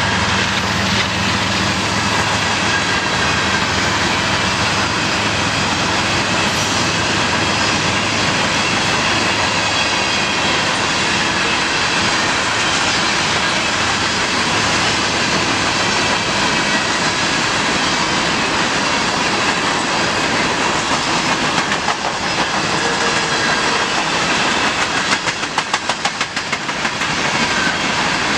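Freight train of covered hopper cars rolling past: a steady rush of steel wheels on rail. A low hum fades out over the first several seconds, and near the end comes a quick run of clicks as wheels cross a rail joint.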